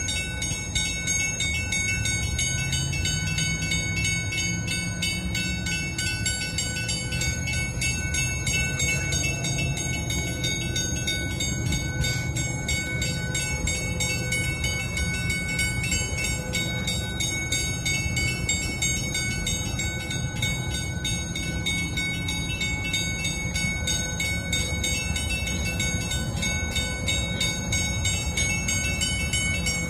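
Steady low rumble of the Great Lakes freighter Arthur M. Anderson's machinery as it passes close by, its pitch wavering slowly, with thin steady high tones above it.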